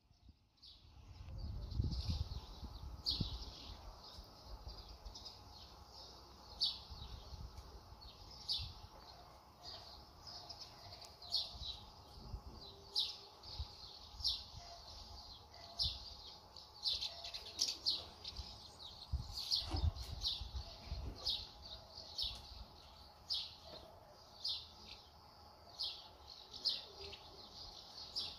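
Small birds chirping outdoors, short high chirps repeating about once or twice a second, with low rumbles of wind on the microphone now and then.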